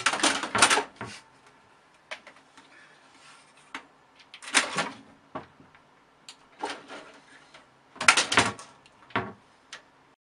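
A cat scrabbling and jumping up against a computer tower case: clusters of knocks and claw scrapes on the casing, near the start, around the middle and twice near the end.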